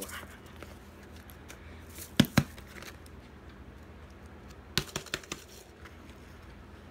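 Plastic water bottle with a balloon over its neck being handled upside down and shaken to pour cornmeal into the balloon, giving sharp plastic clicks and taps: two loud ones about two seconds in and a quick run of lighter ones about five seconds in.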